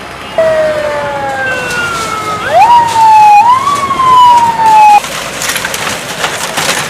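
A siren wailing, its pitch sliding down, sweeping sharply up, then easing down again before it cuts off suddenly about five seconds in. It is followed by a rapid clatter of knocks.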